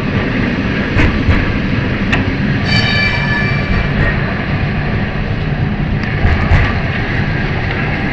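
Lisbon Tram 28 running along its rails, a steady rumble with rattling clicks, and a high tone lasting about a second about three seconds in.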